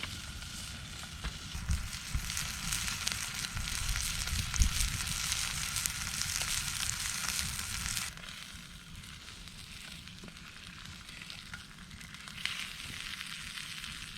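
Steak sizzling in a cast iron pan over an open fire: a dense crackling hiss with a few low knocks, louder for the first eight seconds and then dropping off to a quieter sizzle.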